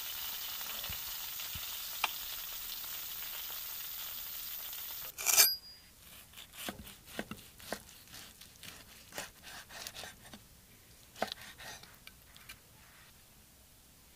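Steady sizzling of the freshly seared steak for about five seconds, cut off by one sharp knock. Then a large knife slicing through the steak on a wooden cutting board: a string of irregular cutting strokes for about six seconds.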